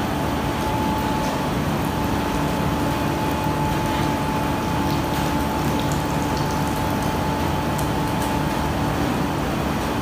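Steady machine hum with a constant whine from the induction melting furnace setup while molten copper pours from the tilted furnace into a crucible, with a few faint crackles.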